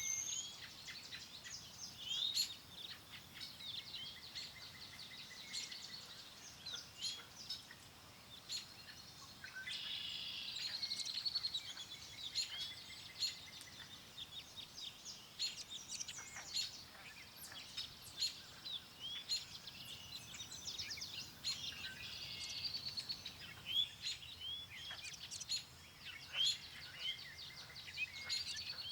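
Many songbirds chirping and singing at once, a dense chorus of short high chirps and whistled notes that overlap without a break, over a faint steady wind.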